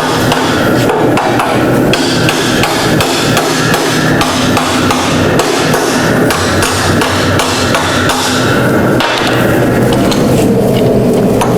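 Hammer blows on a hot solid steel bar being bent around a steel mold: repeated metal-on-metal strikes, several a second, thinning out near the end, over a steady noise underneath.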